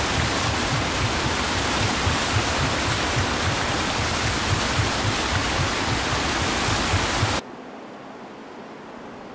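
Water falling and splashing at the stream, a loud, steady rush. It cuts off abruptly about seven seconds in, leaving a much quieter, even outdoor hiss.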